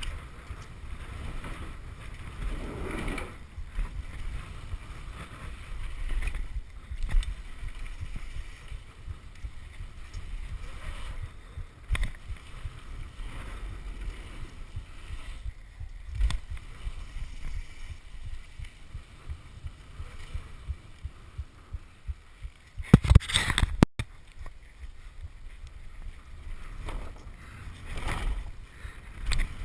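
Wind buffeting the microphone: a gusting low rumble, broken by a few short knocks, with a louder cluster of knocks about 23 seconds in.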